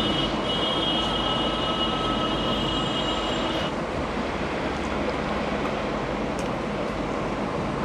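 Steady rushing background noise, with a high-pitched whine over it that stops about three and a half seconds in.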